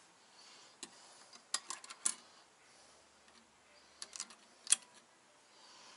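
Light metallic clicks and clinks as valve springs are handled and dropped onto their seats in an RB25DET aluminium cylinder head: a few scattered clicks, a quick cluster around two seconds in, and the sharpest click about three-quarters of the way through.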